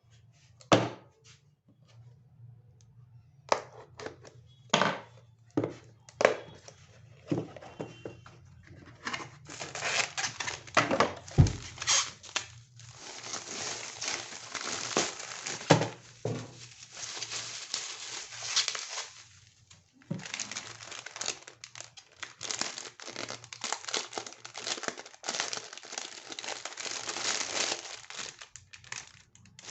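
Jewellery packaging being unwrapped by hand, crinkling and tearing: a few separate taps and clicks at first, then dense crinkling for most of the rest, with a short pause about two-thirds through. A faint steady low hum runs underneath.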